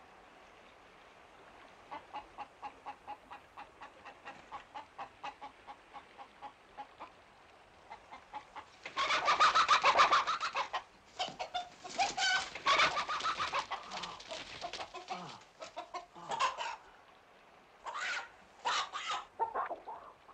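Chickens clucking in a regular run of about three clucks a second, then breaking into loud squawking about nine seconds in, with further scattered squawks after.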